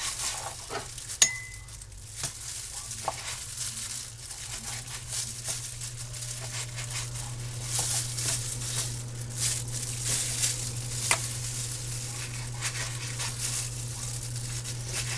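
Knife slicing raw chicken breast on a plastic cutting board, with crackly rustling of thin plastic food-handling gloves and a few sharp knife clicks on the board, the loudest about a second in. A steady low hum runs underneath.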